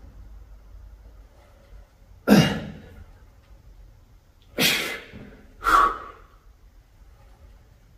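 A man's sharp, forceful exhales with the effort of cable chest fly repetitions: three breaths, about two seconds in, near the middle, and a second later.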